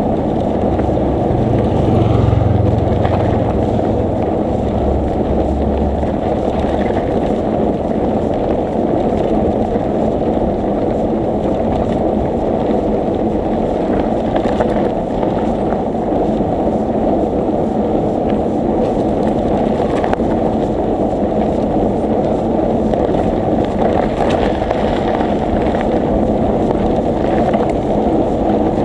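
Steady wind rumble buffeting the microphone of a camera riding along on a moving bicycle: a dense, low noise throughout, with a low hum under it for the first few seconds.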